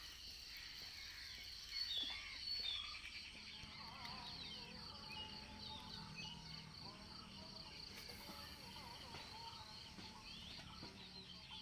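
Many small birds chirping and calling over a steady, pulsing insect drone, with a faint low hum entering about three seconds in.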